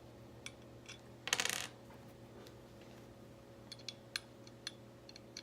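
Small metal clicks and clinks of a screwdriver and tiny screws being worked on a hard drive's metal casing, with one louder metallic rattle about a second and a half in. A faint steady low hum sits underneath.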